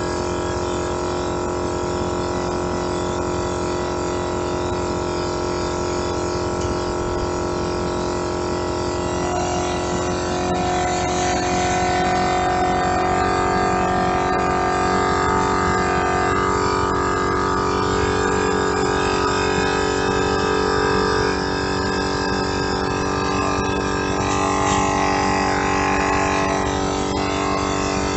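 Tozalazz 12-volt portable air compressor running steadily while it inflates a tire, a loud hum made of several steady tones. It gets a little louder and shifts in tone about ten seconds in.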